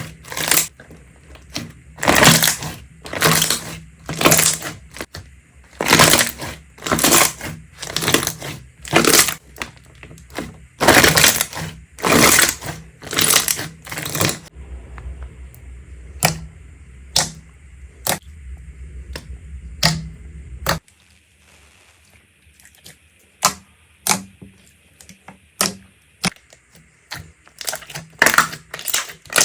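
Slime being pressed and squeezed by hand, giving a string of sharp pops and crackles, roughly one a second, that turn smaller and fainter about halfway through.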